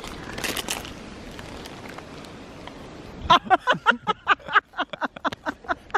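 Paper wrapper rustling briefly as a lamington is opened. Then, from about three seconds in, a quick run of short bursts of laughter.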